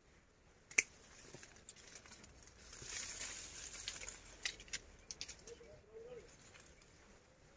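Leaves rustling and twigs clicking as the branches around a small wild honeycomb are handled, with one sharp snap about a second in and a thicker patch of rustling in the middle followed by a few more clicks.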